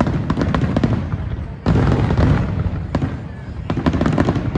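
Fireworks display: a dense run of overlapping bangs and crackles over a low rumble, with a heavier volley breaking out about a second and a half in.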